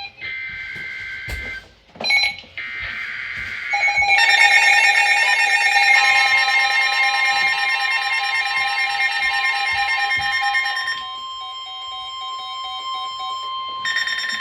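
Emergency Alert System tones on NOAA Weather Radio: short buzzy screeching data bursts, then a long steady electronic alert tone with pulsing beeps over it, announcing a new warning.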